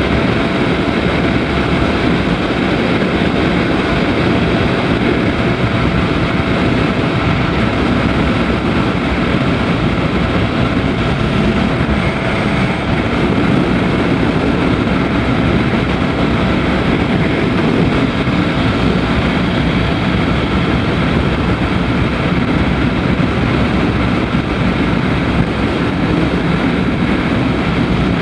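Daelim Daystar 125cc V-twin motorcycle engine running steadily at cruising speed, mixed with wind and road noise on a handlebar-mounted microphone.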